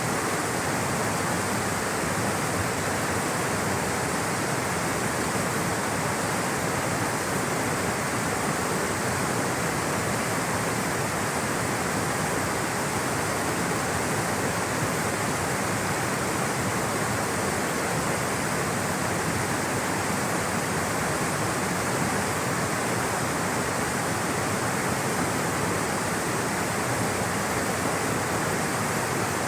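Rushing, flowing water, a steady even noise that does not change.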